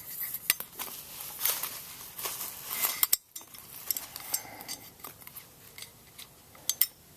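Scattered clicks, scrapes and light metallic clinks of a metal motorcycle tail light housing being handled, as wires and coil springs are worked into its bulb sockets.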